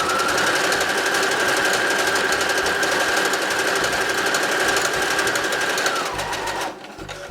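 Brother SQ9185 computerized sewing machine running at high speed, stitching a zigzag stitch through duck canvas: a steady motor whine over rapid, even needle ticks. It stops about six seconds in.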